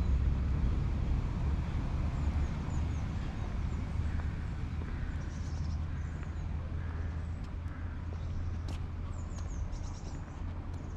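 Outdoor street ambience: a low rumble that slowly fades, with small birds chirping in short, quick, high calls that grow more frequent in the second half, and one sharp click about three-quarters through.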